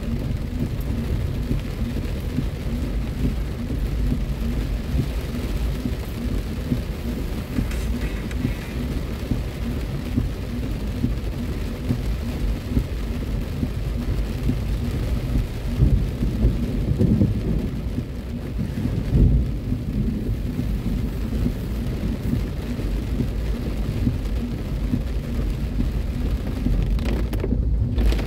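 Heavy rain drumming on a car's roof and windshield, heard from inside the cabin as a dense, steady low rumble that swells louder a couple of times midway.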